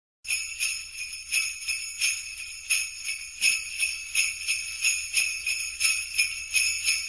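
Jingle bells shaken in a steady rhythm, about three shakes a second.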